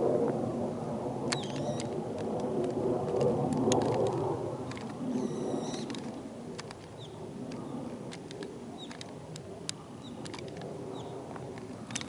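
Small birds giving short, high chirps now and then, with a quick rattling run of high notes about five seconds in, over a steady low rushing background that eases off about halfway through.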